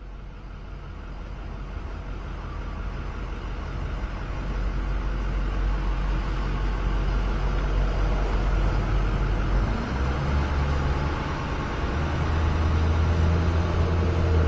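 Road and engine noise inside a moving car: a steady low drone under a hiss. It fades in over the first few seconds, and the drone steps up in pitch about ten seconds in.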